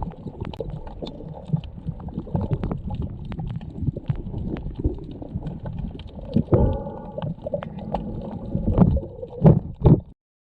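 Muffled water sloshing and gurgling with many small knocks and clicks, and a few louder thumps near the end.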